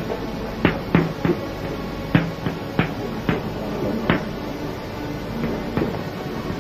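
Chalk writing on a blackboard: about ten sharp taps at irregular spacing as the chalk strikes the board, over a steady low hum.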